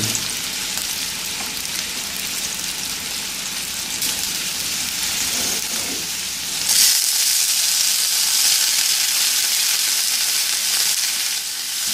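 Vegetables frying in melted butter in a stainless steel frying pan, a steady sizzle. About seven seconds in, the sizzle grows louder and brighter as broccoli florets go into the hot butter.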